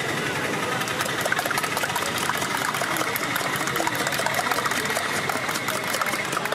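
Eggs being beaten by hand in a small steel cup, the utensil clicking rapidly and continuously against the metal.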